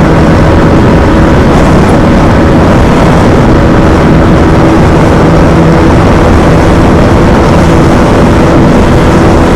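Bajaj Dominar 250's single-cylinder engine running steadily at high revs in sixth gear during a top-speed run, a steady engine drone under heavy wind rush.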